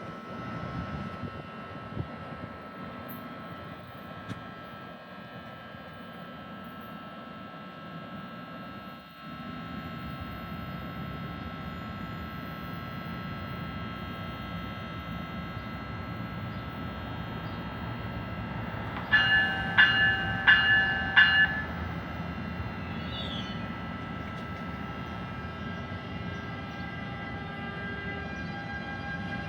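Train running with a steady rumble and a high steady whine, slowly growing louder. About two-thirds of the way through, a horn gives a rapid series of about four short blasts.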